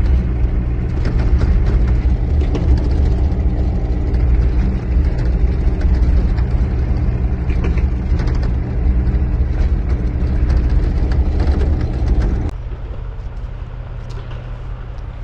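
Vehicle engine running steadily under load, with a loud low drone. About twelve seconds in it cuts abruptly to a quieter, steady low engine hum.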